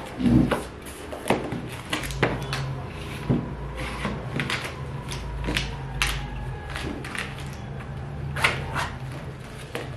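Books, a bowl and a plastic water bottle being picked up and set down on a wooden desk: a string of irregular knocks, taps and rustles, over a steady low hum.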